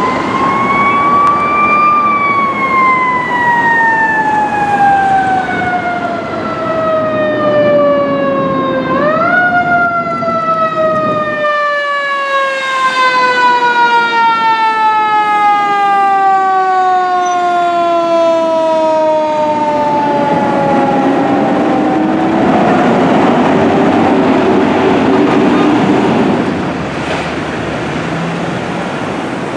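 Fire engine's siren winding up, then slowly coasting down in pitch; about nine seconds in it is quickly wound up again and left to wind down slowly once more, the long slow fall typical of a mechanical siren. Street traffic runs underneath.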